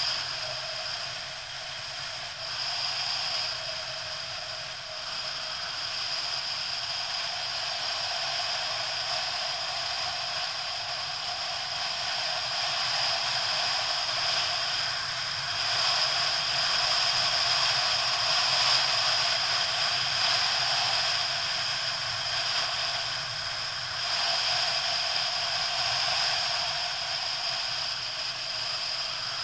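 Motorcycle on the move, heard as a steady mechanical rattle and hiss with little low rumble. It grows louder a little past halfway and dips briefly about four-fifths of the way in.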